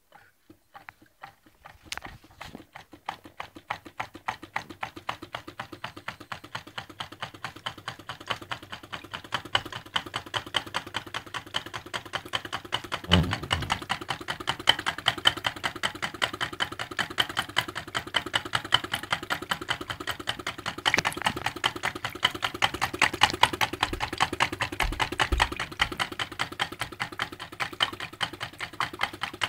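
Homemade tin-can Stirling engine and its water pump running with a rapid, even clicking clatter that starts from silence and builds over the first couple of seconds, with a single heavier knock about halfway through.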